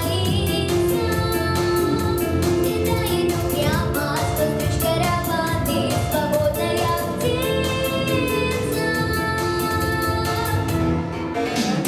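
A singer performs a pop song in Russian over a backing track with a steady beat. Near the end the music drops back briefly as a falling sweep passes.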